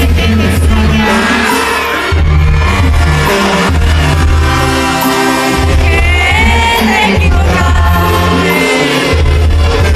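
Live Mexican banda music: a sousaphone playing a bass line of held notes under brass and drums, with a lead singer.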